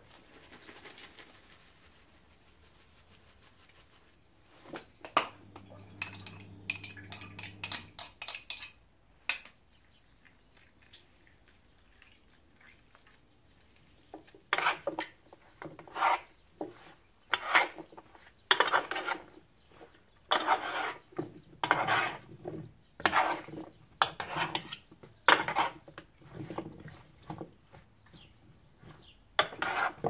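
Metal spoon stirring and scraping chicken, potatoes and peppers around a metal roasting pan, in repeated strokes about one a second from about halfway through. Before that, a few clicks and a short rattle.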